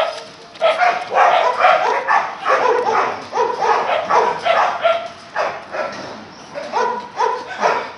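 Dogs barking over and over, several short barks a second, easing off for about a second just past the middle and then starting up again near the end.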